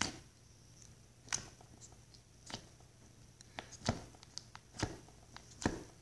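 Thick slime in a small plastic tub being pressed and poked by fingers: scattered short sticky clicks and pops, about one a second.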